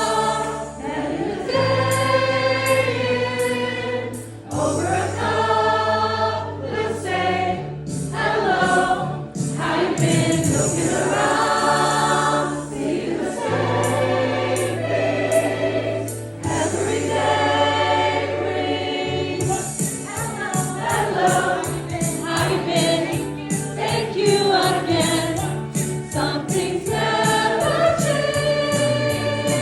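A choir singing a song over an accompaniment of held bass notes. About two-thirds of the way in, a quick jingling rhythm joins in.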